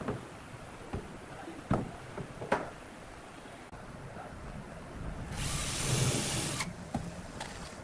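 Pine frame pieces knocking on the workbench a few times. Then a cordless drill runs for about a second and a half, boring a pilot hole into the edge of a pine cabinet door.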